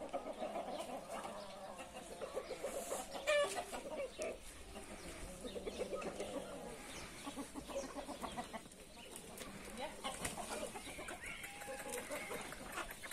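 Backyard chickens, hens and roosters, clucking steadily in many short calls, with one louder call about three seconds in.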